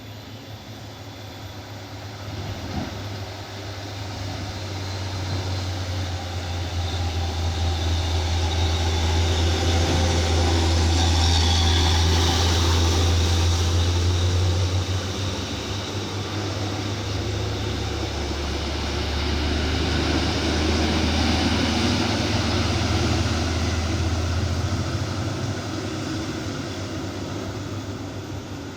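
Heavily loaded dump truck's diesel engine roaring deep on a downhill grade, growing louder to a peak about halfway through, dipping briefly, swelling again, then fading toward the end.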